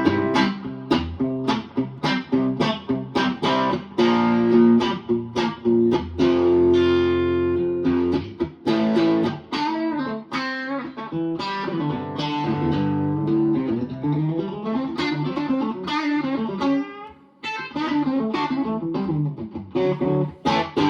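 Electric guitar with a stock Telecaster pickup, played through an amp: a run of picked single notes and ringing chords.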